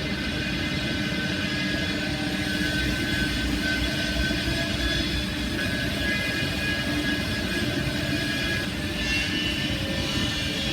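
Sawmill machinery running steadily: a constant mechanical drone with a high whine whose pitch shifts about nine seconds in.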